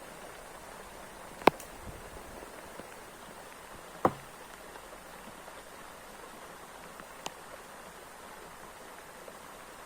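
Steady rain falling in the forest, with two sharp knocks about a second and a half and four seconds in, and a fainter tick near the end.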